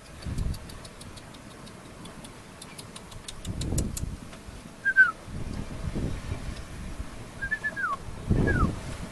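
A man whistling three short falling notes in the second half, calling to a seabird overhead. Underneath are gusting wind and waves rushing past the hull, with a quick run of faint high ticks in the first half.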